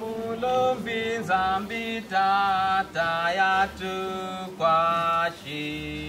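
Soundtrack music: a solo voice chanting a slow melody in short, separate held notes over a sustained low drone, settling on one long held note near the end.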